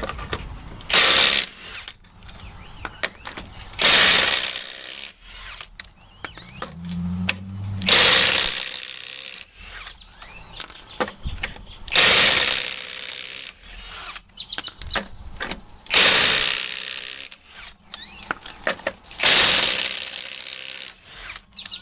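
Cordless Milwaukee M18 Fuel 1/4-inch impact driver with a 7/8 deep socket running in six short bursts, about one every four seconds, as it undoes a truck wheel's lug nuts one at a time. Small clicks and clatter of the socket and loosened nuts come between the bursts.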